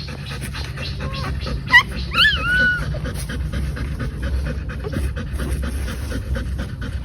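Golden retriever in labour panting rapidly and steadily. A few high whines that rise and fall come about two seconds in.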